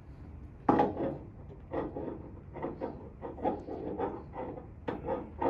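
A sharp thump about a second in, then a string of short, irregular rustles and knocks from a patient and chiropractor shifting and handling on a padded treatment table.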